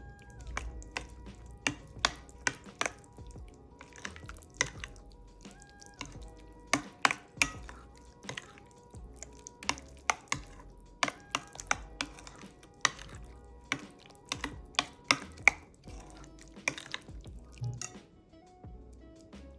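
Irregular sharp clicks and knocks of kitchen utensils against dishes or a board, several a second at busy moments, over quiet background music.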